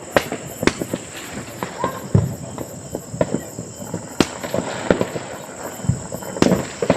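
Firecrackers going off at a distance, a dense irregular run of sharp bangs and pops, some with a short echo, over a steady high tone.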